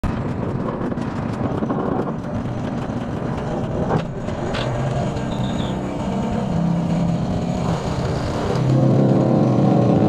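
Excavator-mounted hydraulic vibratory pile hammer running with the excavator's engine, driving a steel sheet pile. A steady droning hum that grows louder near the end.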